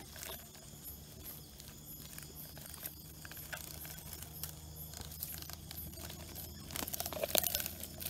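Faint rustling and crinkling from hands handling plants and a plastic cup, with scattered small clicks and a louder stretch of crinkling about seven seconds in. A faint low hum runs underneath.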